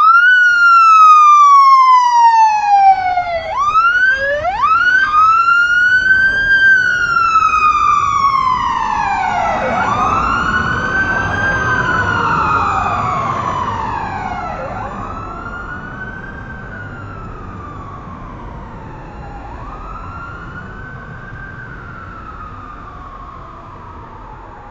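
Police car siren: it opens with one long falling sweep, gives a couple of quick rising whoops, then settles into a slow wail that rises and falls about every five seconds. The wail fades steadily over the second half, over a low rumble.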